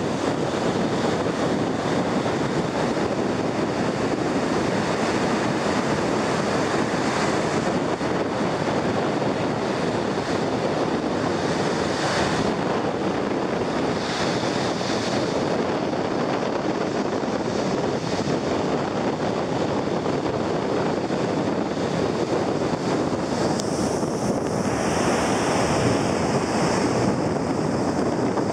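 Ocean surf washing up a sandy beach: a steady rushing wash of waves, with some wind on the microphone and a brighter hiss near the end.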